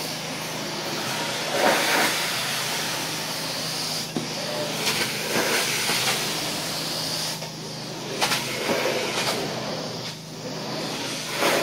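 Rage truck-mount carpet extractor's cleaning wand spraying hot water and sucking it back up through the carpet, a steady airy hiss with a low hum beneath it. The hiss swells every couple of seconds as the wand is pushed and pulled across the carpet.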